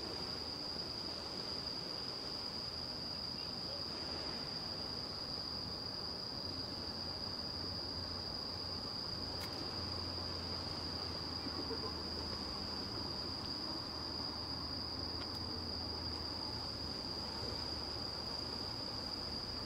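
Crickets singing outdoors at night: an unbroken, steady high-pitched trill. A faint low hum sits underneath for much of the time.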